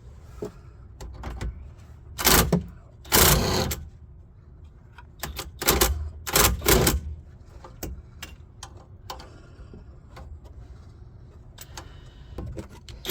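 Impact wrench hammering in five short bursts on a seized sway bar link nut, the link's stud spinning with the nut so it won't come loose.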